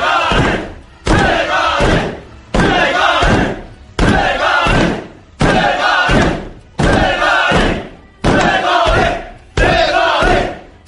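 A group of men shouting a one-word chant in unison, "daegari!" (Korean slang for "head"). There is one loud shout about every second and a half.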